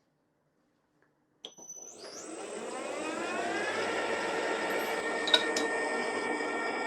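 Deckel FP2 milling machine spindle switched on with a click about a second and a half in, whining up in pitch as it comes up to speed, then running steadily. A single sharp tick about five seconds in.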